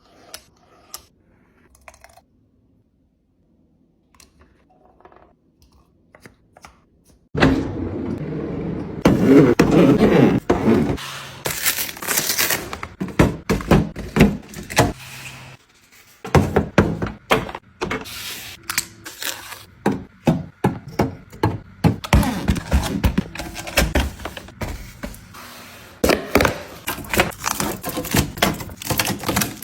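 Household items, packages and containers being handled and set down during restocking and organizing: a busy run of thunks, knocks and scrapes. It begins with only a few faint clicks, and the handling grows loud about seven seconds in.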